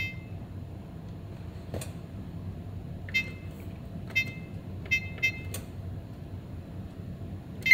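Oven's electronic control panel beeping as its keys are pressed to set the temperature to 400 degrees: short beeps about a second apart with a single click before them, and right at the end a quick run of beeps at different pitches begins.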